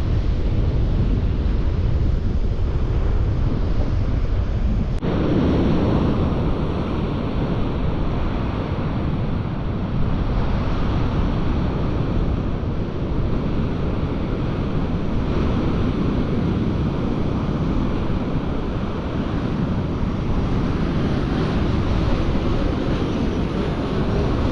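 Strong wind buffeting the microphone over the steady wash of surf breaking on the beach.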